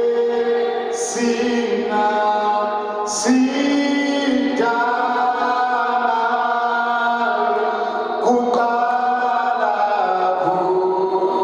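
Unaccompanied voices singing in slow, held chords that shift every second or two, with the hiss of sung "s" sounds at some changes.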